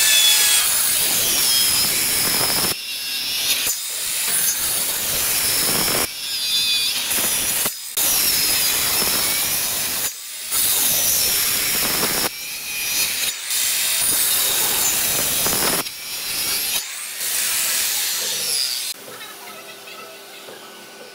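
Maktec handheld circular saw cutting shallow grooves across a hardwood stair tread in a series of passes. The blade's whine dips and recovers as it bites, and each pass cuts off abruptly. Near the end the sawing stops and only a faint background remains.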